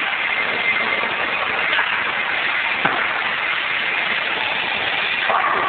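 Steady rumbling din of a bowling alley, with a single thud a little under three seconds in as a bowling ball is bowled down the lane.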